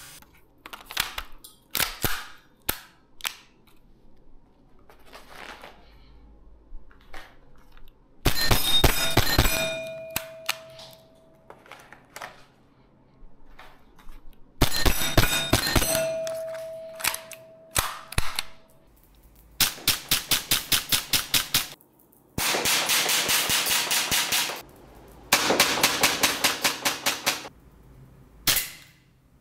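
Tokyo Marui Sentinel Nine (SIG P226) gas blowback airsoft pistol: scattered single clicks as it is handled, then several strings of rapid shots, each a sharp pop as the slide cycles. After two of the strings a steel target plate rings on for about two seconds.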